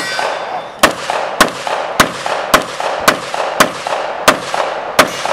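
A string of eight pistol shots fired at a steady pace, about half a second apart, each with a short ringing tail.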